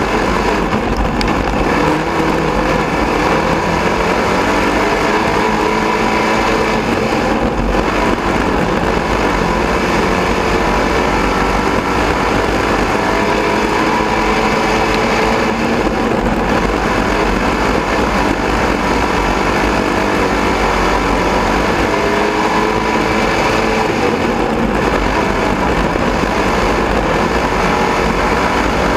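Dirt-track race car engine at racing speed, heard from inside the cockpit, its pitch rising and falling again and again as the driver accelerates and lifts, over a steady rush of noise.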